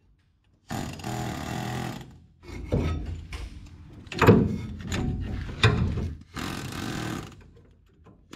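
Pneumatic air hammer (air chisel) with a long bit driving out a seized, rusted leaf-spring shackle bolt. It runs in bursts of rapid hammering: one about a second in, an uneven stretch with sharp metallic knocks in the middle, and another burst near the end.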